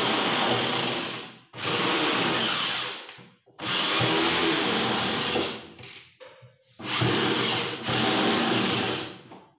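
Electric drill running in four bursts of one and a half to three seconds each, with short pauses between, as it works into the cabinet panel while the shutter is fitted.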